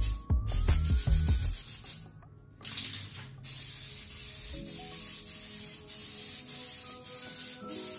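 Aerosol spray can of Rust-oleum truck bed coating hissing in long spurts, with brief breaks, as it is sprayed onto a steel bumper; a few heavy thumps in the first second and a half, then a short pause before the spraying. Faint background music underneath.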